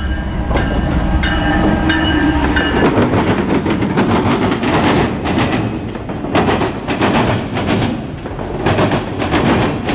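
A diesel freight locomotive passing close, its horn sounding briefly a second or two in. This is followed by the loud rumble of the train rolling by and the clatter of the autorack cars' wheels striking over the rail joints.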